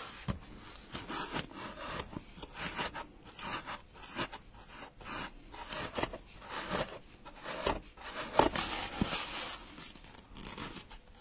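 Felt being pushed into slits in a polystyrene foam pumpkin with a pointed tool: felt and tool rubbing against the foam in a run of short, irregular strokes.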